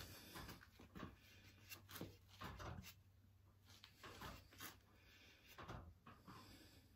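Near silence: room tone with a faint low hum and scattered faint clicks and rustles.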